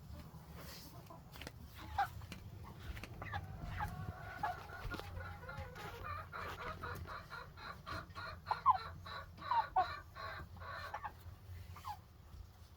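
Meat chickens clucking and calling, with a dense run of quick repeated calls and a few sharp squawks in the second half.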